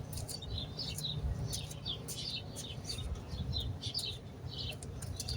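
Small birds chirping, short high calls repeating several times a second, over a low steady rumble.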